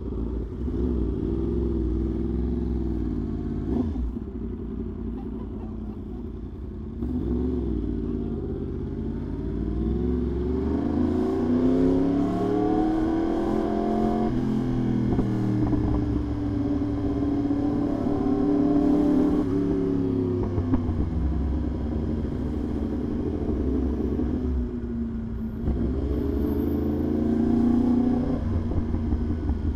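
Yamaha R1's inline-four engine under way, its pitch climbing as the throttle is opened and dropping as it is eased off, several times over.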